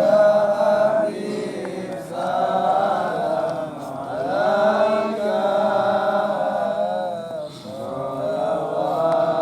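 A single voice chanting in long, wavering held notes, with a short break between phrases every second or two.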